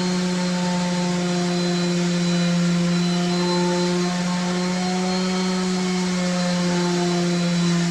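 A machine running steadily, a constant low hum with a higher whine above it and no change in pitch.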